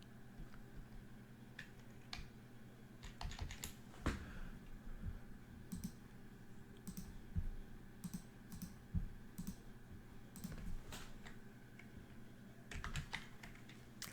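Typing on a computer keyboard: scattered, irregular keystrokes and clicks, over a faint steady low hum.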